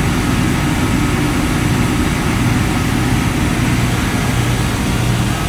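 Steady, loud drone of running ship engine-room machinery, with a constant low hum underneath.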